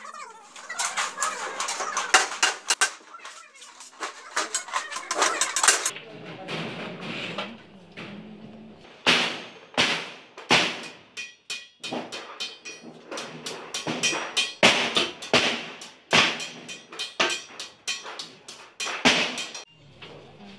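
Large hand shears cutting galvanized steel sheet. There is a quick run of sharp metallic snips and crunches for about six seconds, then separate snips a second or so apart with short pauses between them.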